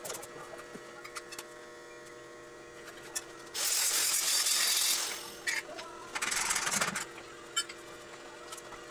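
Arc welding on a steel-tube railing: two short bursts of sizzling arc noise that start and stop abruptly, the first about a second and a half long and the louder, the second just under a second, with a few sharp ticks around them. A faint steady hum runs underneath.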